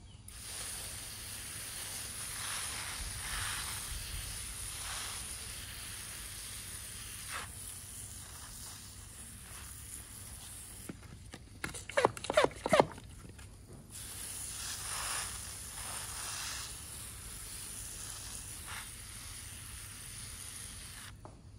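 Steady background hiss with a brief cluster of sharp clicks and knocks about halfway through.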